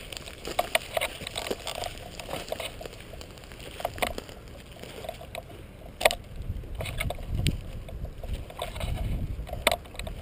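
Footsteps and rustling through dry grass and brush, with scattered crackles and a few sharp clicks; the loudest click comes about six seconds in and another near the end. A low wind rumble on the microphone sets in during the second half.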